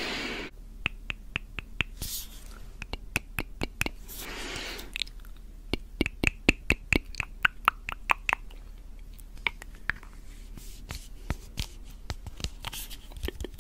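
Close-up tongue clicks and wet mouth sounds: a steady run of short, sharp clicks, quickest a little past the middle, with a few brief hisses between them.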